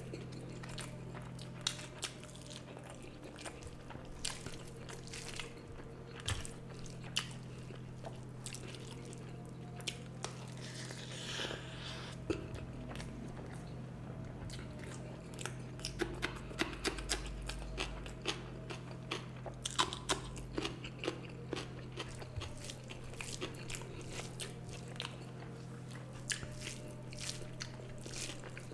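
Close-miked chewing and mouth sounds of a person eating rice with fish curry and egg curry, with frequent small wet clicks and crunches. A steady low hum runs underneath.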